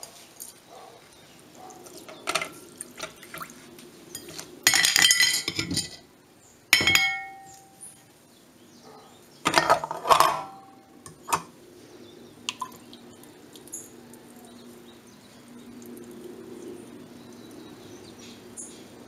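A white ceramic bowl set down inside a stainless steel pot, clinking and ringing against the pot and the upturned saucer beneath it several times, the loudest clinks in the middle. A soft pour of water from a plastic jug follows near the end.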